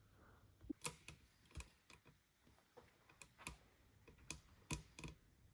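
Faint, irregular light clicks and taps, about a dozen in a few seconds, as of small hard objects being handled.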